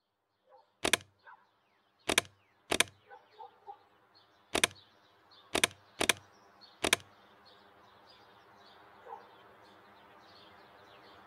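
Seven sharp knocks at uneven spacing over the first seven seconds, then faint birds chirping.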